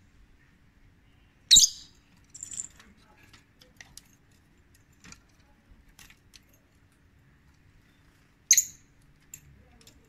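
A rosy-faced lovebird giving two shrill, very brief calls, about a second and a half in and again near the end, with a softer high call shortly after the first and faint soft ticks in between: the contact calls of a lone caged lovebird.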